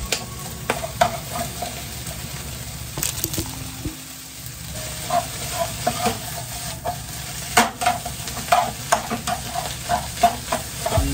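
Fried rice sizzling in a hot frying pan while a slotted metal spatula stirs and turns it, with repeated short clacks and scrapes of the spatula against the pan, coming about two or three a second in the second half.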